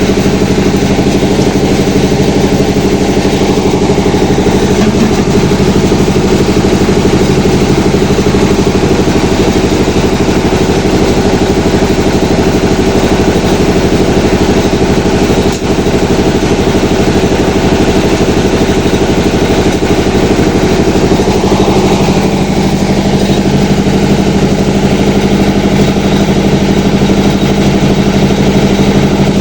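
Motor vehicle engine running steadily and loud, its pitch holding almost constant.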